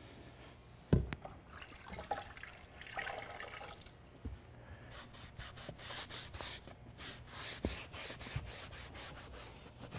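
A damp cloth wiping across a sheet of plywood in soft rubbing strokes, dampening the wood before gluing, with a little water from wetting the cloth in a bucket. A sharp knock comes about a second in.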